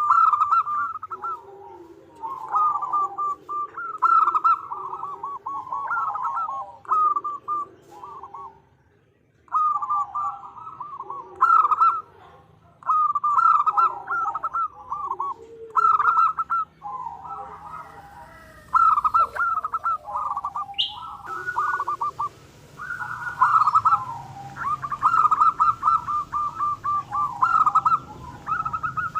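Female zebra dove (perkutut) calling: repeated quick, rolling cooing phrases about a second or two long, with short pauses between them. This is a hen's call to draw a male.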